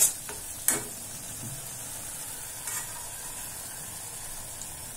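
A steel spoon knocks twice against a stainless-steel kadai in the first second. After that the tomato gravy sizzles steadily as it cooks in the pan.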